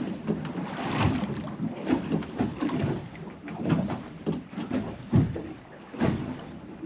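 Wind gusting across the microphone and sea water slapping against the hull of a small anchored boat, in irregular surges about once a second.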